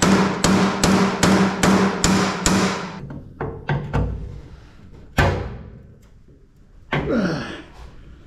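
Hammer blows on ringing steel, knocking at a seized screw in an old welder's metal case: a quick run of about seven strikes, then a few slower ones, and a short scraping squeal near the end.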